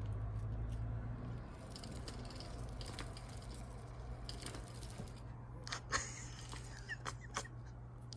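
Light scattered taps, scrapes and rattles of kittens playing, with a handful of sharper clicks in the second half, over a steady low hum.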